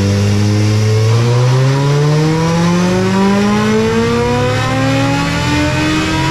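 2022 Suzuki Hayabusa's 1340cc inline-four, breathing through a small eBay aftermarket exhaust, pulling on a dyno: the engine note climbs steadily in pitch from about a second in.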